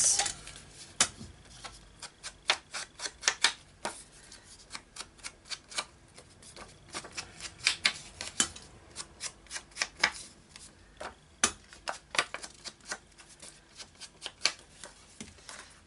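Ink blending tool with a foam pad dabbing on an ink pad and along the edges of a paper card, inking and distressing the edges: sharp, irregular taps, often several in quick succession.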